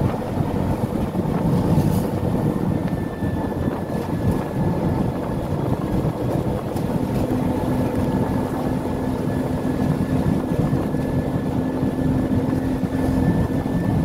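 Steady engine and road rumble of a moving vehicle, heard from inside its cabin, with a faint high whine throughout. A low steady hum joins about halfway through.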